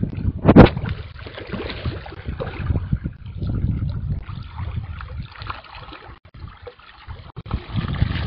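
Wind buffeting the phone's microphone over gently moving water, with one sharp, loud knock about half a second in.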